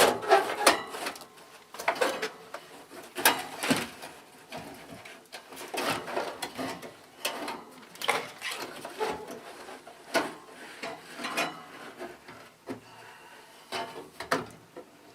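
An air conditioner's outer cover being worked and pulled off its chassis: irregular clunks, knocks and short scrapes, several close together at times.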